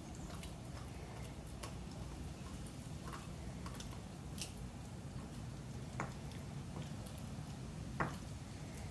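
Cane Corso puppy gnawing and mouthing a toy bone: soft chewing with scattered small clicks, over steady low background noise. Two sharper knocks come about six and eight seconds in.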